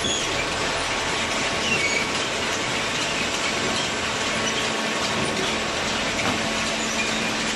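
Industrial machinery running steadily, a continuous mechanical clatter with brief high squeaks now and then.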